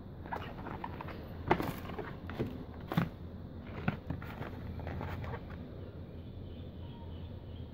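A cardboard food box being handled and turned over in the hand, with a few sharp clicks and knocks, the loudest about a second and a half and three seconds in.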